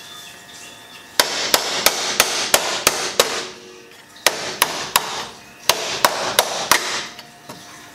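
Hammer blows on the crumpled steel front crash bar of a BMW E36, knocking the bent metal back into shape. There are three runs of quick strikes, about three a second, each blow leaving the metal ringing.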